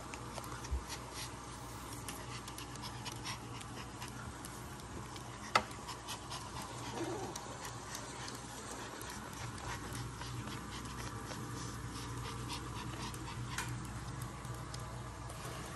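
Pomeranian puppy playing on a hardwood floor: many small light clicks, like claws and paws on the wood, with panting. One sharper knock comes about five and a half seconds in, over a low steady hum.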